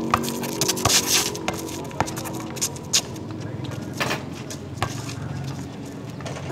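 A basketball bouncing and knocking on an outdoor concrete court, with players' footsteps scuffing, in irregular thumps a second or so apart. The ball strikes the hoop about four seconds in.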